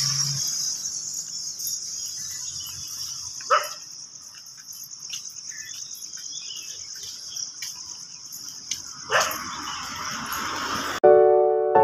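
Insects chirring in a steady high-pitched drone, with a dog barking twice, a few seconds in and again near the end. Piano music starts just before the end.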